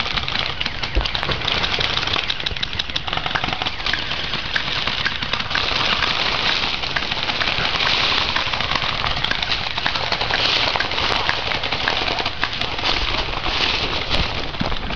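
Continuous crackling and rustling of dry fallen leaves underfoot as players move through the woods, mixed with handling noise from the camera being carried along.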